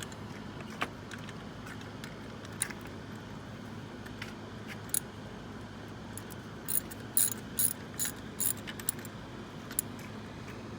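Socket ratchet clicking as a new spark plug is snugged down. There are a few scattered single clicks, then a quick run of clicks in the second half.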